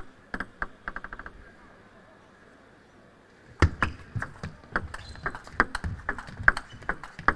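Table tennis ball clicks. A few single bounces and a quick run of quickening bounces come about a second in. After a short quiet spell, a fast rally of ball strikes on rackets and table starts about three and a half seconds in.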